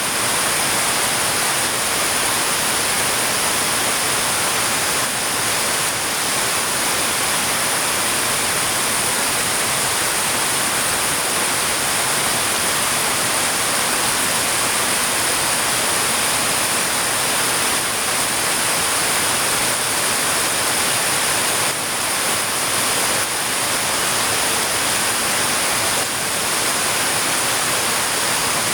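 Heavy rain falling steadily, an even hiss that stays at one level throughout.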